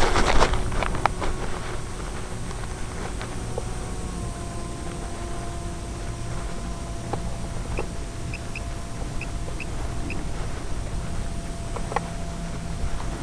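Wind noise from an FPV slope-soaring glider in flight, with a faint steady whine that shifts pitch a few times. A few knocks come in the first second or so, and a string of short high chirps comes around the middle.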